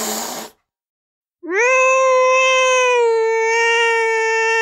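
Recorded angry-cat sounds from a cat-sound app: a brief harsh, noisy hiss that stops about half a second in, then after a short pause a long drawn-out yowl that rises at its start and then holds a steady pitch.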